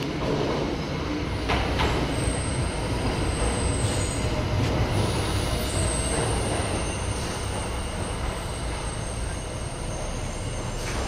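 Tyne and Wear Metrocar train pulling into an underground station platform: a steady rumble of wheels on rail, with a high squeal from about two seconds in until about seven seconds as it slows to a stop.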